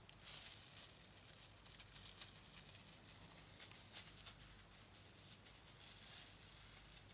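Faint, scattered crinkling and rustling of a clear plastic glove rubbing through hair.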